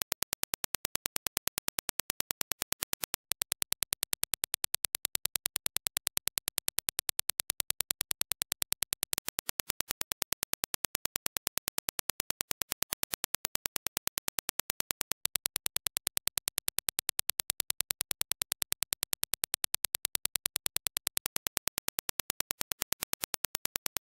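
Reference Dirac impulse test signal: a rapid, evenly spaced train of sharp clicks, several a second, brightest in the highs.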